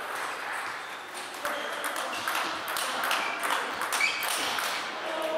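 Table tennis rally: a rapid, irregular run of sharp clicks as the ball is struck by the rubber-covered rackets and bounces on the table.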